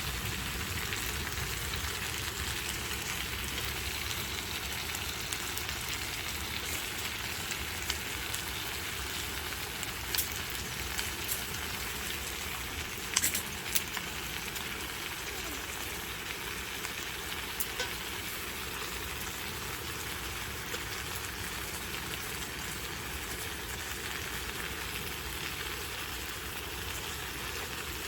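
Dakgalbi (spicy stir-fried chicken) frying in a pan with a steady sizzle, with a few brief sharp clicks about ten and thirteen seconds in.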